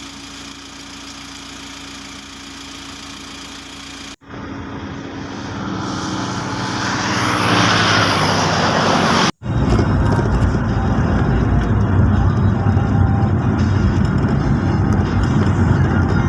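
Motor vehicle noise in three clips cut together: first a steady hum, then a sound building louder over about five seconds, then a loud, steady low rumble of a vehicle on the move.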